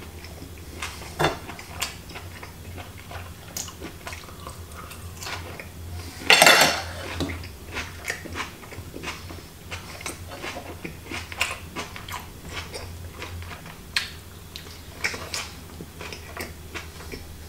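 Steak knife and fork clinking and scraping on a plate while a steak is eaten, with scattered light clicks and chewing. One louder rustling crunch comes about six seconds in.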